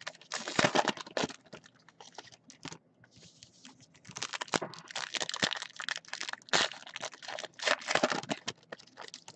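Trading card pack wrappers crinkling and cards being handled and shuffled: a quick run of short rustles and snaps, quieter for a couple of seconds in the first half.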